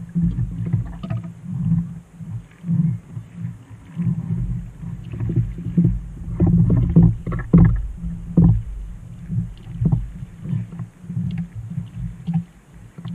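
Small waves slapping against a kayak hull and wind buffeting the bow-mounted camera's microphone, a rough, uneven rumble. Irregular knocks and rustles from gear being handled on deck come through, thickest a little past the middle.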